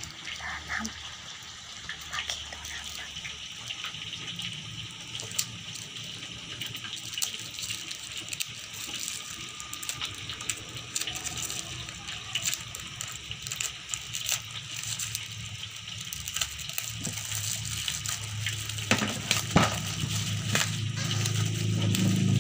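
Plastic parcel wrap and packing tape crinkling and crackling as fingers pick at and peel the tape, over a steady hiss. A low hum comes up in the last few seconds.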